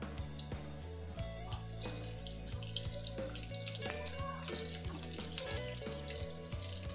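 Hot oil sizzling as breadcrumb-coated chicken drumsticks deep-fry in a pan, under background music with steady low notes.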